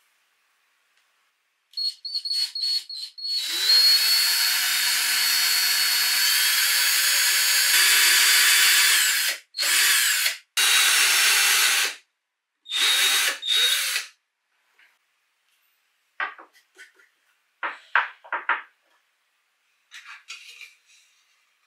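Electric drill with an 8 mm bit boring into teak laminated wood, drilling holes for wooden dowels: a few short trigger bursts, then one long steady run of about six seconds, then three shorter runs. Near the end come a few light scattered clicks.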